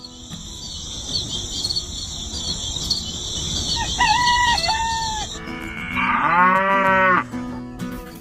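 Crickets chirping steadily, then a short two-part call about four seconds in, and a cow mooing once, for about a second, near the end.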